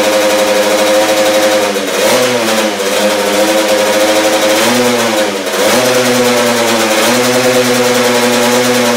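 Honda CR80 single-cylinder two-stroke engine in a Moriwaki MH80R running at a steady high idle. Its engine speed briefly sags and picks back up twice, about two seconds in and again around five seconds.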